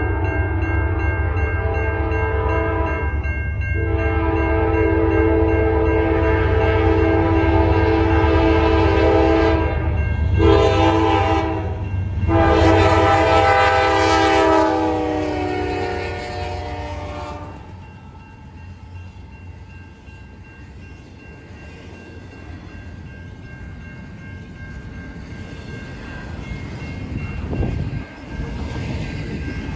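A Norfolk Southern GE C44-9W diesel locomotive's multi-chime air horn sounds long, long, short, long, the grade-crossing signal, dropping in pitch as the locomotive passes. It stops about two thirds of the way in, leaving the low rumble and wheel noise of double-stack intermodal cars rolling by.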